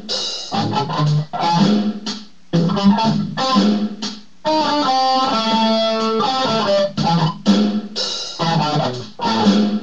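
Electric guitar played through an effects pedal: choppy riffs broken by short gaps, with a longer stretch of held notes in the middle.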